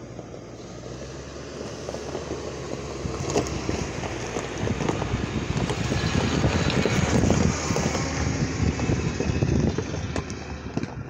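Hummer H3 crawling past over loose rock: a low engine note with stones crackling and crunching under the tyres, growing louder as it passes close by around the middle, then fading as it moves away.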